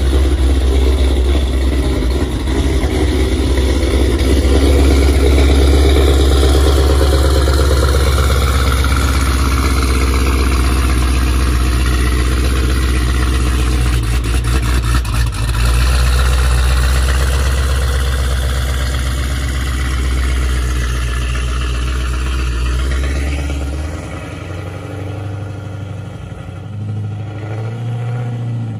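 Jeep Grand Cherokee Trackhawk's supercharged V8 running with a loud, steady low exhaust drone as it rolls slowly out, then revving up with a rising note a little after twenty seconds and fading as the SUV pulls away.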